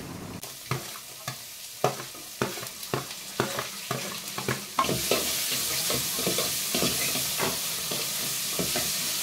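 A metal spoon scraping and tapping against a metal pan of frying shallots and coconut bits. About five seconds in, a steady sizzle starts as chopped raw green mango is tipped in from a plate and stirred into the hot oil.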